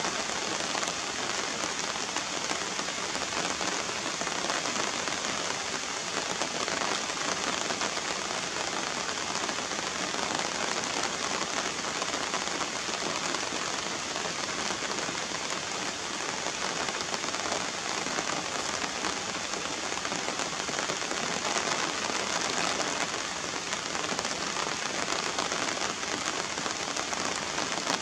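Steady rain falling and splashing on wet ground and standing puddles.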